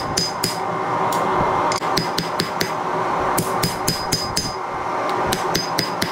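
Hand hammer forging red-hot leaf-spring steel on an anvil: runs of quick blows, about five a second with short pauses between runs, each with a bright ring from the anvil. A steady rushing noise from the running forge sits underneath.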